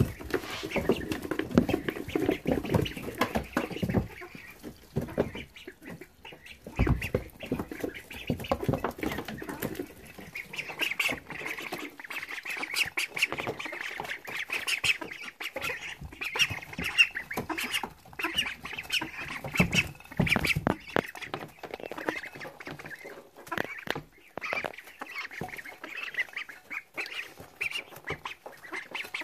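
A brood of Silver Appleyard, Welsh Harlequin and Rouen ducklings peeping while they eat peas from a dish, with many quick clicks and taps of bills against the dish and bedding.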